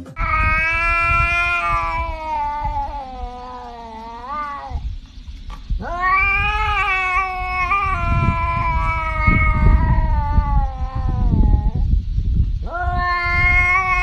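Tabby cat caterwauling: three long, drawn-out yowls with wavering pitch. The first two last several seconds each and sag in pitch at the end, and the third starts about a second before the end.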